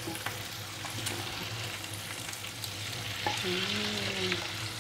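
Chicken pieces frying in spice paste in a pan with a steady sizzle, while a utensil stirs and turns them, making a few sharp clicks against the pan.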